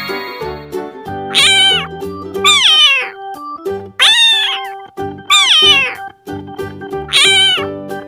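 Domestic cat meowing five times, each meow a falling cry about a second and a half apart, over light background music.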